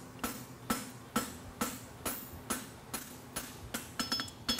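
Farrier's hammer striking a hot steel draft horseshoe on the anvil in a steady rhythm of about two blows a second, some with a short metallic ring. The hammer is angled to bump up and bevel the heel of a hind draft shoe.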